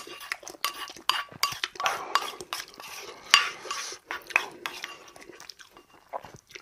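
Wooden spoon scraping and knocking against a ceramic bowl as rice mixed with stew is stirred and scooped, a run of short, sharp scrapes and taps with one sharper knock about halfway through.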